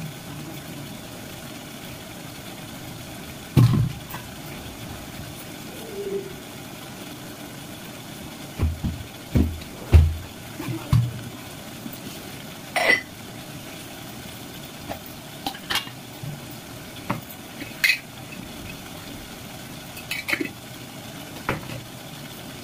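Kitchen utensils and pots knocking and clinking now and then, with a few heavier low knocks close together about halfway through, over a steady low hiss.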